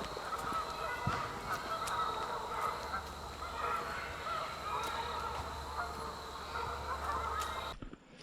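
A flock of geese honking, many calls overlapping in a continuous chatter. It cuts off abruptly near the end.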